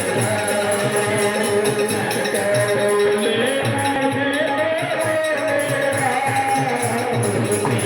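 Devotional kirtan music: a melody sung or played over a fast, even jingling percussion rhythm like shakers or small cymbals.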